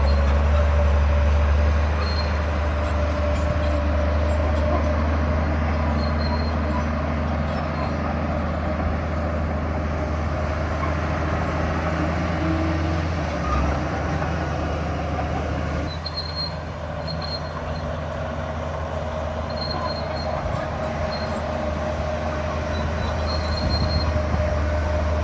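Komatsu bulldozer's diesel engine running steadily under load, a heavy low drone with a steady whine over it from the machine and its steel tracks. Faint short high beeps come in small groups.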